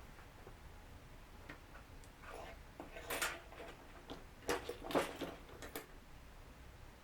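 Light clicks and taps of small hand tools and wires being handled during a close-up electronics repair. There are a few sharper clicks in the middle of the stretch.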